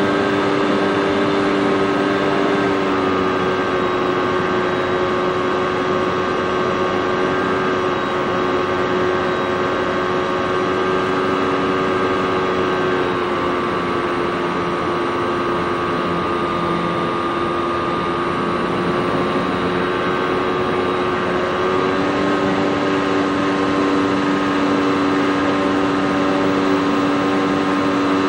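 RC model plane's motor and propeller running steadily in flight, a droning tone that settles slightly lower a few seconds in and rises again about three quarters of the way through as the throttle changes.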